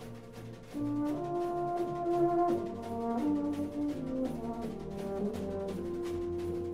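Brass band playing slow, held chords, swelling louder about a second in, over a light, steady percussion beat of about three ticks a second.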